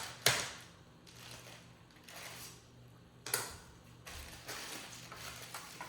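Small camera accessories and their packaging being handled: two sharp clicks, one just after the start and one a little past three seconds in, with light rustling and fiddling between them.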